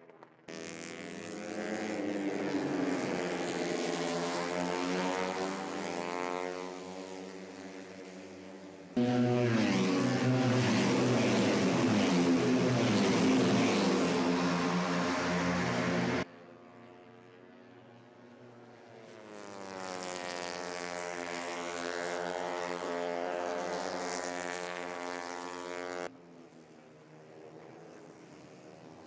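Moto3 racing motorcycles, 250cc single-cylinder four-stroke engines, running at high revs as they pass, their pitch rising and falling through gear changes and each pass. The sound changes abruptly several times and is loudest from about 9 to 16 seconds in.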